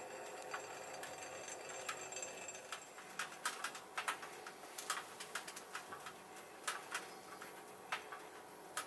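Wood fire crackling inside a camping wood stove: faint, irregular sharp pops and clicks, thickest between about three and five seconds in.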